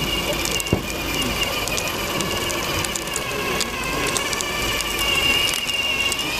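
Radio-controlled model combine harvester driving: a steady, slightly wavering high motor whine with scattered small clicks and crackle, and one sharper click about a second in.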